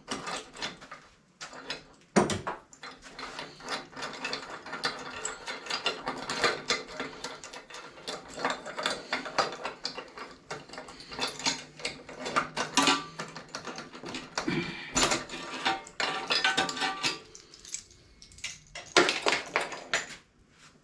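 Ratchet wrench clicking in runs as a fastener is worked, with louder metal knocks from tools and parts about two seconds in, near fifteen seconds and near nineteen seconds.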